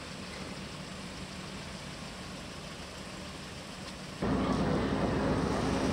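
Steady low hum of the ferry's engines, heard from the deck. About four seconds in it cuts abruptly to a louder outdoor rushing noise with a car engine running close by.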